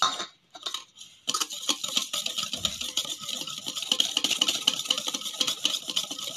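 Wire whisk beating egg whites to a foam in a metal bowl: a fast, steady run of clicks and scrapes as the whisk strikes and drags against the bowl. It settles into a full, even rhythm about a second in.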